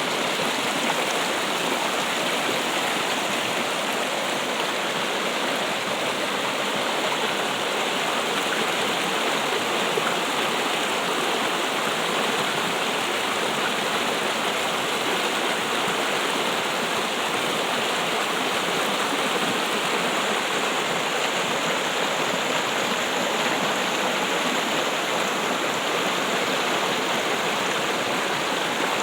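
Water trickling and splashing in a steady, unbroken flow, like a small stream or cascade.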